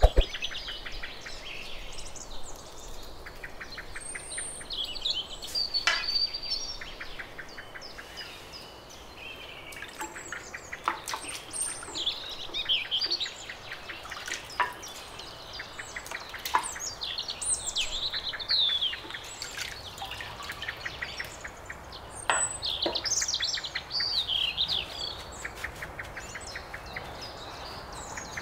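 Wild birds chirping and trilling on and off in the background, with a few sharp knocks and clicks scattered through.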